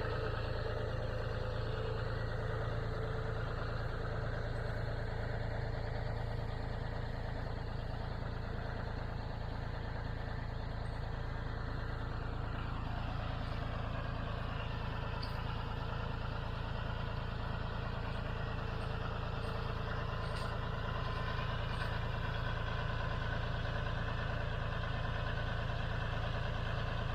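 John Deere 5055D tractor's diesel engine idling steadily.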